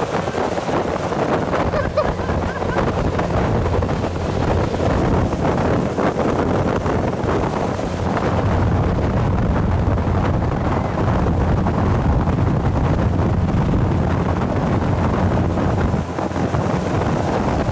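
Pershing 70 motor yacht running at high speed: wind buffeting the microphone over the steady drone of its twin engines and the rush of the churning wake.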